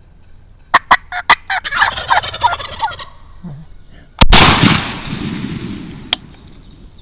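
A wild turkey gobbler gobbling loudly at close range, a rapid stuttering rattle. Then, about four seconds in, a single shotgun blast whose report dies away over a couple of seconds.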